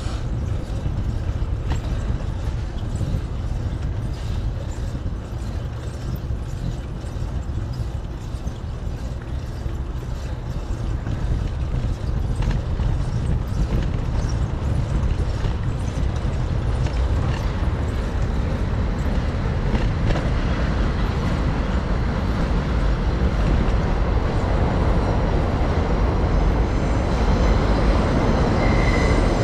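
Wind rushing over the microphone of a camera riding on a moving bicycle, mixed with road traffic noise; the rush grows louder in the second half.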